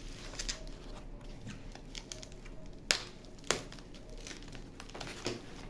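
Utility knife slitting a foam packing sheet, with the foam rustling and tearing as it is pulled open, and a few sharp clicks, two of them close together about three seconds in.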